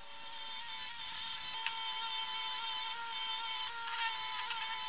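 Sealey bench grinder running with a steady whine, a rusty BMW E30 output shaft held against its wheel; the sound dips briefly a few times.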